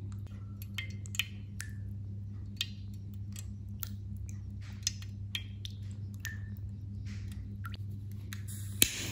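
Scattered light clicks, taps and crinkles from handling a tin pop-pop steam boat and its thin foil candle tray, over a steady low hum. One louder sharp click comes near the end.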